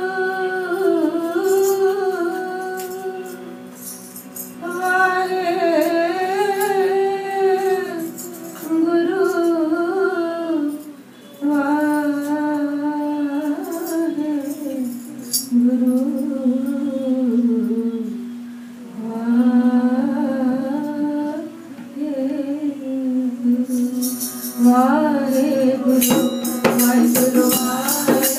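A woman singing a Sikh shabad in kirtan style, with long wavering phrases over a steady harmonium drone. Tabla strokes come in thick and fast near the end.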